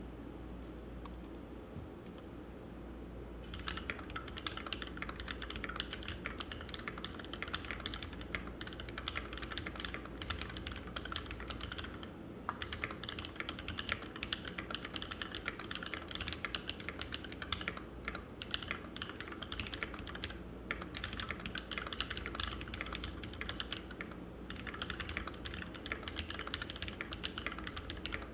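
Typing on a Keychron K4 V2 keyboard with lubed, filmed Glorious Panda tactile switches in a foam-dampened aluminium case: fast, continuous keystrokes start a few seconds in, with a few short pauses, over a low steady hum.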